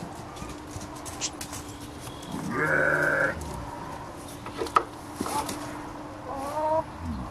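A sheep bleating: one long, loud bleat about two and a half seconds in, then a shorter, fainter call near the end.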